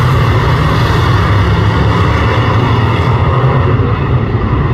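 A pack of speedway saloon cars racing on a dirt oval, many engines running loudly together with revs rising and falling. About three seconds in, the sound turns duller as its highest part fades.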